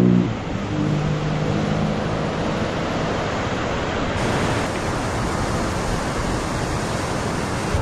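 Steady, loud rushing noise of wind on the microphone of a moving motorcycle. A low hum, most likely the KTM 390 Adventure's single-cylinder engine, shows in the first two seconds.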